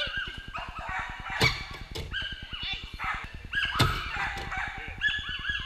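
Dogs barking and yipping repeatedly. Sharp bangs come about a second and a half in and again near four seconds, the loudest when a dog hits the pedal of a flyball box.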